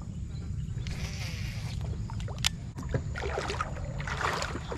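Water sloshing and splashing in shallow floodwater over a steady low rumble on the microphone, with a few sharp clicks about halfway through.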